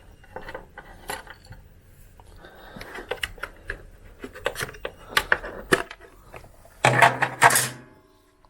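Small metallic clicks and clinks of a T25 Torx driver and screws as the side panel of a BMW twin-cylinder motorcycle is unscrewed, with a louder scraping rustle for about a second near the end.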